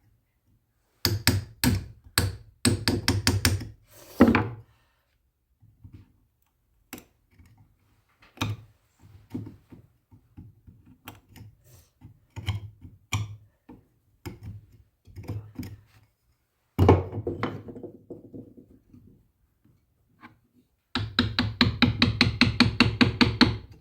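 Irregular knocks and taps, with a fast, even run of repeated strikes near the end.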